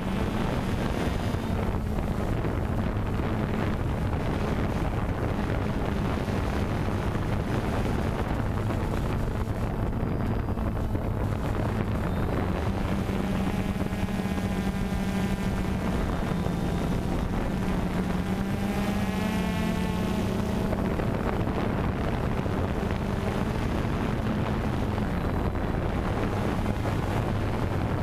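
DJI Phantom 2 quadcopter's four rotors running steadily, a droning hum with wind noise from the propeller wash on the on-board microphone. Its pitch wavers a little around the middle as the motors change speed.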